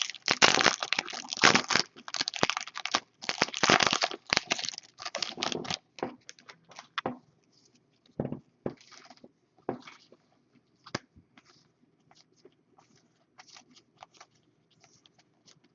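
Foil trading-card pack wrapper being torn open and crinkled for about the first six seconds, then quieter, scattered clicks and slides of cards being handled.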